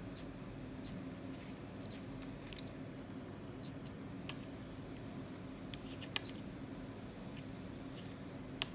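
Small clicks of a Suunto sports watch's side buttons being pressed to scroll through its menus, with two sharper clicks, one about six seconds in and one near the end, over a steady low hum.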